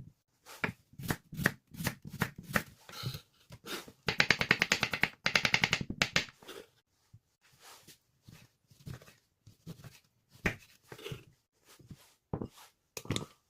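Knife cutting on a cutting board: single chops at first, a fast run of rapid chopping about four seconds in lasting around two seconds, then slower, scattered cuts.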